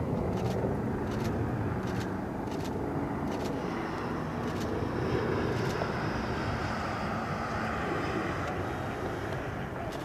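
Airbus A380's four Rolls-Royce Trent 900 turbofans at takeoff thrust as it lifts off and climbs away: a steady, low jet rumble.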